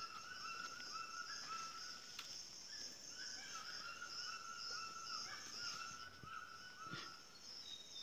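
Rainforest ambience: insects shrilling steadily, with a short high chirp repeating over and over and a couple of faint clicks.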